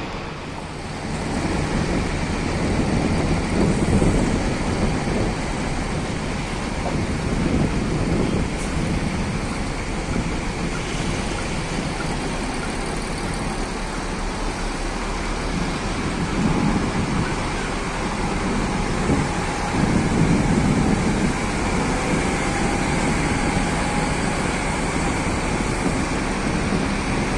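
Diesel engine of a large coach bus running as the bus moves slowly across the yard, swelling louder several times.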